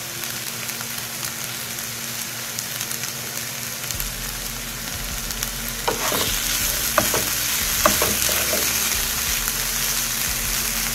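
Chopped onion, tomato and fresh herbs sizzling in a non-stick frying pan. The sizzle grows louder about halfway through as a wooden spatula stirs the mixture, with a few knocks and scrapes of the spatula against the pan.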